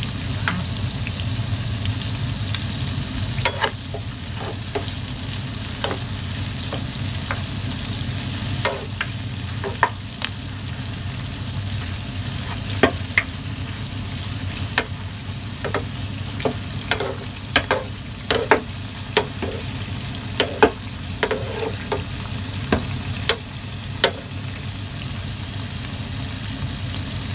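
Hot oil sizzling steadily around a pot of dough balls deep-frying, with scattered sharp clicks and taps, some briefly ringing, as a ladle turns the balls and knocks against the pot; the taps come more often in the second half.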